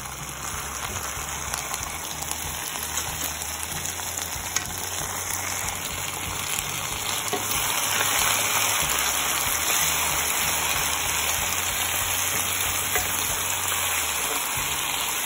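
Diced potatoes, onion and tomato sizzling as they fry in oil in a cooking pot, a steady hiss that grows a little louder about eight seconds in.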